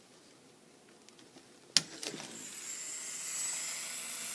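A sharp click about two seconds in, then a small DC hobby motor starts up and runs with a steady high whine that grows louder over the next second.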